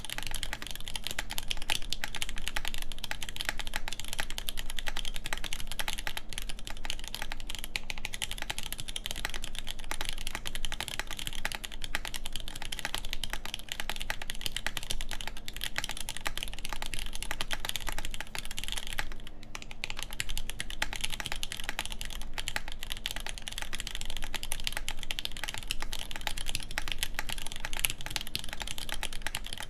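Continuous fast typing on an LZ Reborn Edition mechanical keyboard with vintage Nixdorf MX Black linear switches in a full aluminum plate under Desko keycaps, keystrokes following each other rapidly. There is a brief break about two-thirds of the way through.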